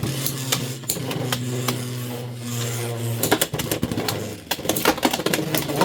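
Two Beyblade X tops spinning and clashing in a plastic stadium: a steady whir with repeated sharp clacks as they hit each other. The whir stops about three seconds in and the clacking gets denser, ending in a burst finish where one top is knocked apart.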